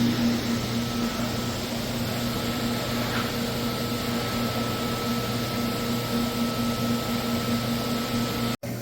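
Machinery running with a steady low hum, a faint pulsing drone and a thin high whine over an even background noise.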